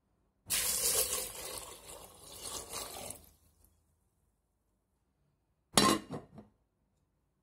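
Water poured into a metal pot of dried chickpeas for about three seconds, fading out as it stops. A few seconds later a glass pot lid is set down on the metal rim with a sharp clink and a couple of smaller rattles.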